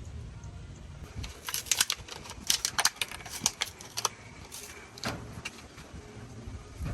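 A quick, irregular run of light clicks and taps lasting about three seconds, then a few scattered taps, over a low steady background hum.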